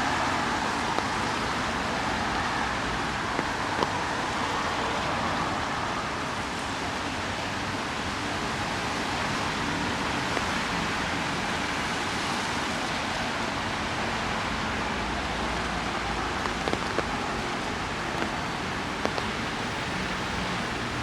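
Steady rain falling, an even hiss with a few sharp drop ticks now and then.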